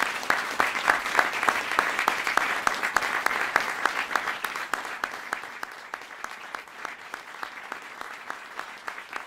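Audience applauding, many hands clapping together in a steady rhythm of about four claps a second. It starts suddenly, is loudest in the first few seconds and slowly fades.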